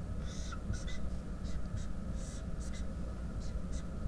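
Dry-erase marker drawing on a whiteboard: a quick series of short scratchy strokes, with a couple of faint squeaks, as small arrows are drawn.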